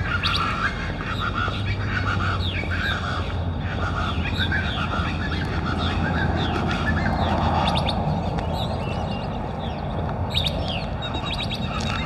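Birds calling from the surrounding brush: a chorus of repeated squawking calls and short chirps, over a low steady rumble.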